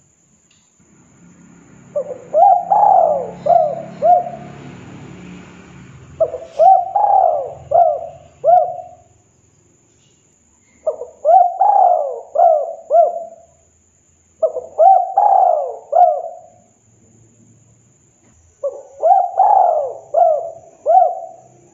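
Spotted dove cooing its song five times, each phrase a quick run of four or five rising-and-falling coos, with short pauses between phrases.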